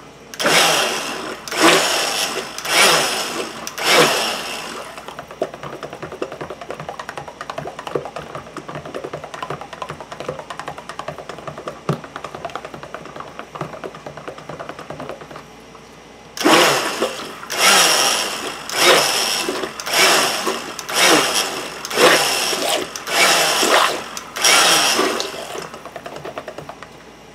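Stick blender run in short bursts, about one a second, in raw soap batter to mix the oils and lye solution: four bursts, then a long stretch of quieter swishing as the blender is moved through the batter with the motor off, then about eight more bursts.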